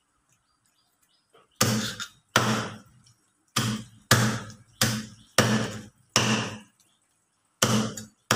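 Meat cleaver chopping raw chicken on a round wooden chopping block: about nine heavy chops at uneven intervals, starting about a second and a half in.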